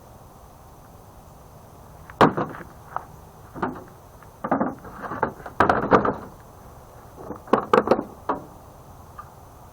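A series of knocks and clunks, like hard objects being handled and set down, clustered between about two and eight and a half seconds in.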